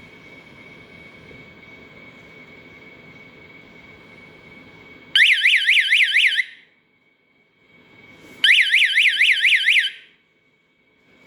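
Electronic flood detector alarm sounding twice, each time a loud, fast-warbling siren tone lasting about a second and a half, the second starting about three seconds after the first.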